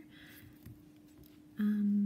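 A woman's voice gives a short, steady hum on one pitch near the end, over a faint steady background hum.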